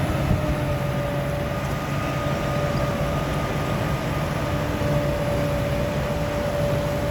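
Grimme potato harvester running steadily while lifting potatoes: a constant engine drone with a steady whine from the machinery over it.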